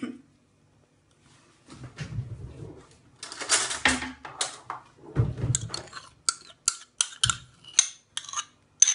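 Thick yogurt slides out of a bowl onto raw mutton pieces in a glass bowl. Then a metal spoon scrapes and taps against the ceramic bowl to clear out the last of the yogurt, making a run of sharp, uneven clinks.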